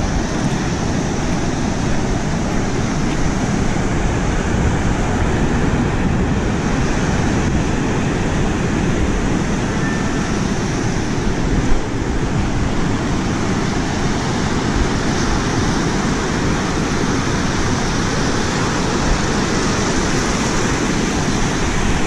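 Pacific surf breaking and washing up a sand beach, a steady rushing, with wind buffeting the microphone.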